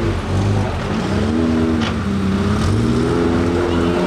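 Off-road 4x4 engine revving on a rough dirt trail. The pitch climbs about a second in, drops back, then climbs again and holds near the end.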